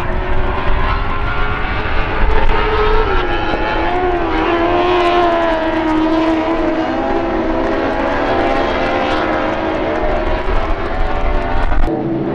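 Several lightning sprint cars racing on a dirt oval, their engines wailing at high revs, the pitch dipping and climbing again about three to five seconds in, over a low rumble. The sound changes abruptly near the end to a steadier engine note from the bunched field.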